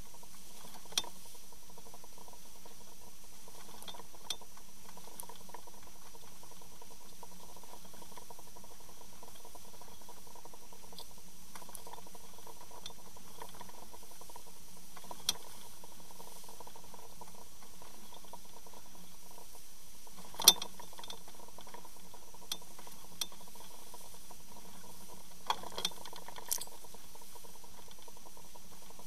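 Underwater sound beside a boat's hull: a steady hiss with a faint steady hum, broken by scattered sharp clicks. The loudest click comes about two-thirds of the way through.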